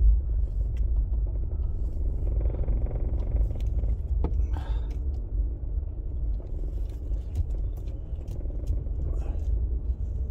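Car being driven, heard from inside: a steady low rumble of engine and tyres, with a few light clicks.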